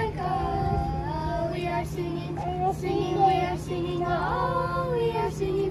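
A child singing a melody in long held notes that glide up and down, over a steady low hum.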